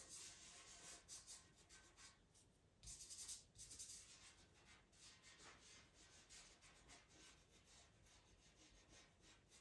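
Pastel pencil and fingertip working over Pastelmat paper: faint scratchy strokes and rubbing in short spells.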